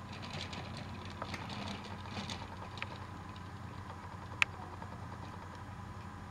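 Battery-powered TrackMaster toy train running: a low, steady motor hum with faint clicks from the trucks' wheels on the plastic track, and one sharp click about four and a half seconds in.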